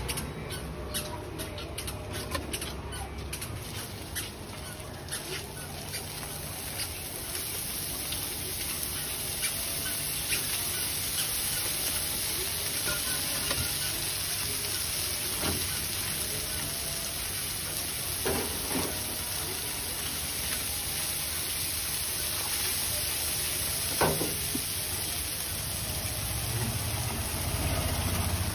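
Rava dosa batter sizzling on a hot iron griddle. It crackles densely for the first few seconds, then settles into a steady hiss, with a few light knocks from the cook's utensil partway through.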